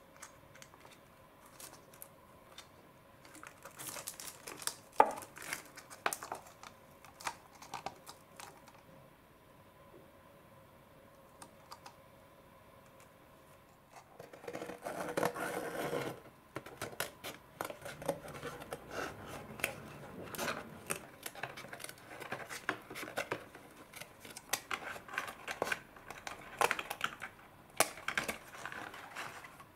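Light taps and clicks of packaging being handled, then a burst of plastic wrapper crinkling. After that comes a long run of quick, short snips as scissors cut through the thin cardboard of the kit's box.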